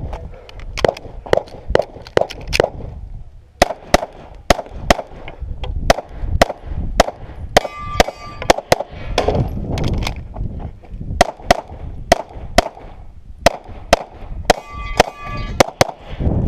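Pistol shots fired in quick pairs and runs through a course of fire, with steel targets ringing when hit, about eight seconds in and again near the end.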